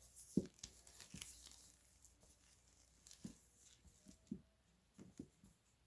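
Faint handling noise from a long XLR microphone cable being wound up: a few scattered light knocks and rustles.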